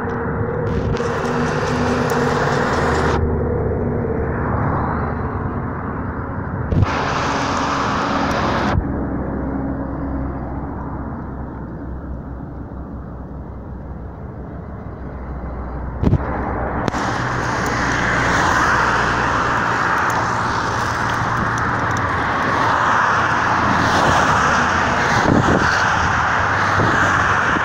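Outdoor road noise heard while riding along a roadside: wind rumbling on the microphone, and cars and vans passing. A few sharp knocks stand out, about a third of the way in, a little later, and past the middle.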